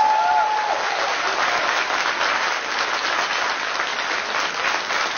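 Audience applauding: a steady, dense patter of many hands clapping, with a voice heard over it briefly at the start.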